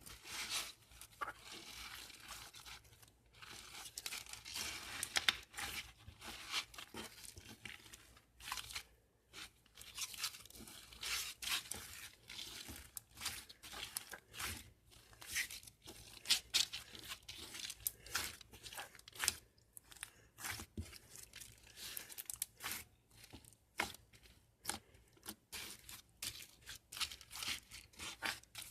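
Crinkling and tearing of thin material handled by hand, in irregular short bursts with small clicks, close to the microphone.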